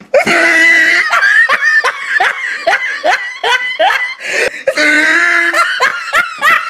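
A person laughing hard in a run of short, rhythmic bursts, about two or three a second, pausing briefly partway through and then laughing again.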